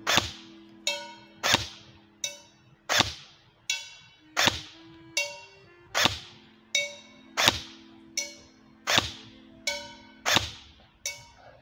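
Airsoft VZ 58 replica firing single shots of 0.30 g BBs, about one every second and a half, eight in all. Each shot is followed about two-thirds of a second later by a ringing metallic hit as the BB strikes a small metal target about 30 m away; nearly every shot hits.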